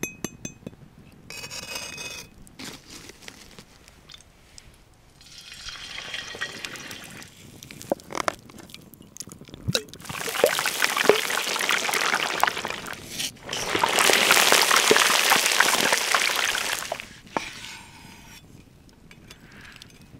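Cooking sounds: oil pouring into a cast-iron pan, and hot fat deep-frying meat with a loud, steady sizzling hiss in two long stretches in the second half. Shorter clinks and scrapes of knife and pan come in between.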